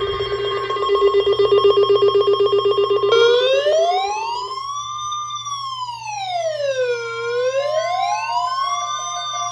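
Electronic emergency alert sounds at the start of a tornado watch alert. A buzzing alarm over a steady tone runs for the first four seconds or so. From about three seconds in, a siren wail rises and falls slowly, about four seconds per cycle. A beeping tone joins near the end.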